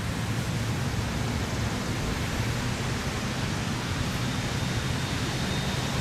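Steady rushing outdoor background noise with a low hum underneath, such as wind and distant traffic; no siren is sounding.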